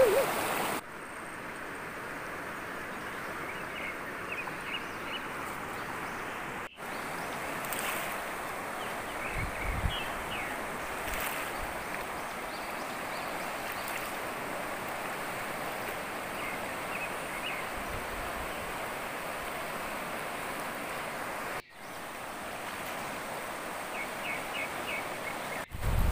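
A fast-flowing river rushing over rocks: a steady wash of water noise.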